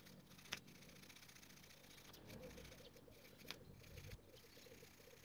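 Near silence, broken by a few faint clicks of small metal parts handled at a workbench, the clearest about half a second in.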